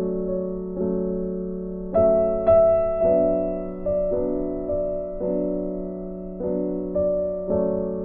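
Background piano music: slow, soft chords, each struck and left to fade, a new one about every half second to a second, with a louder, higher chord about two seconds in.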